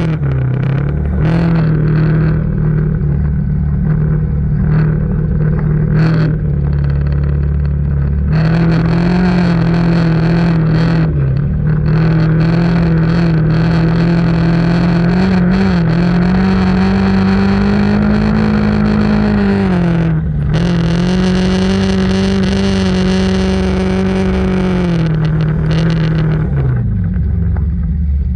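ATV engine running at a steady cruising throttle, its pitch rising slightly, dipping briefly about two-thirds of the way through, and falling off near the end as it slows.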